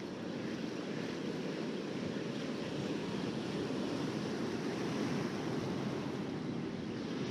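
Ocean surf breaking and washing up a sandy beach, a steady rush that swells slightly, with wind on the microphone.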